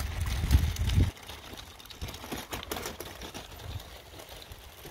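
A low rumble for about a second, then a run of light, irregular clicks and ticks.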